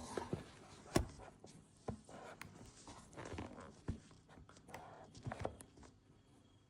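Handling sounds at an espresso machine: a few sharp knocks and clicks and soft rustling as a glass is set under the spout and moved about, trailing off to near silence near the end.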